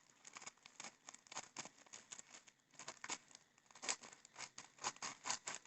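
Parcel packaging being opened by hand: faint, irregular crinkling and tearing, with a few sharper crackles in the second half.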